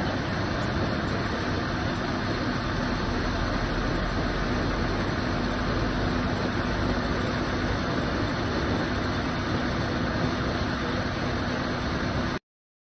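Small petrol engine of a portable hydraulic rescue-tool power unit running steadily at a constant speed, with a steady hum over a low rumble. It cuts off suddenly near the end.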